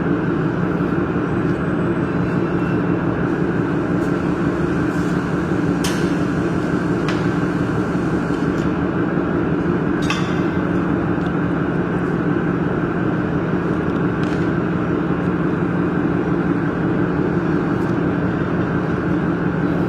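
Steady mechanical hum at an even level, with a few faint clicks.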